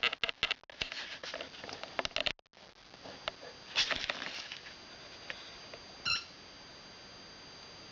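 Australian shepherd puppy chewing and mouthing a fuzzy toy football, with scratchy, crackly gnawing and rustling noises, densest in the first two seconds. About six seconds in there is one short squeak from the toy's squeaker.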